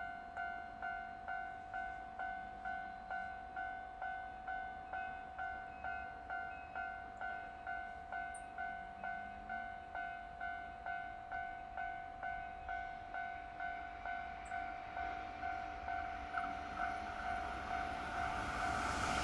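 Japanese level crossing warning bell ringing, an electronic two-tone ding about twice a second. The rising rush of an approaching train builds over the last few seconds and becomes loud right at the end.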